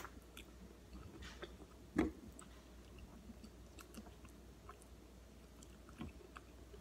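Faint chewing and biting as a person eats a piece of chicken curry by hand, with a few soft mouth smacks, the clearest about two seconds in.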